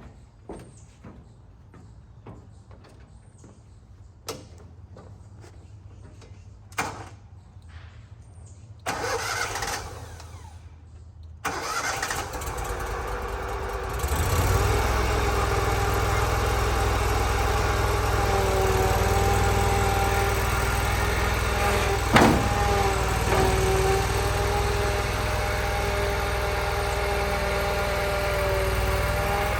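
Exmark Laser Z zero-turn mower engine cranked over, catching about twelve seconds in and then running steadily, a little louder from about fourteen seconds. Several sharp clicks and knocks come before it.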